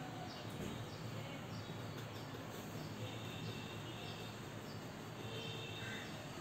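Faint steady background noise with a few faint high chirps, about three and five seconds in.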